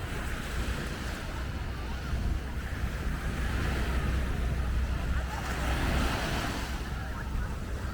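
Sea surf washing onto a sandy beach, swelling as waves come in about two and six seconds in, with wind rumbling on the microphone.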